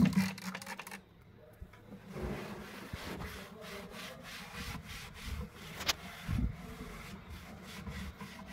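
A trigger spray bottle of Colin glass cleaner squirts at the start. Then a cloth rubs back and forth across the bottom of an empty drawer, wiping it clean.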